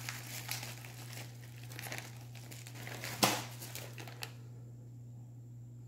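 Plastic packaging crinkling as it is handled, with one sharp click a little after three seconds in.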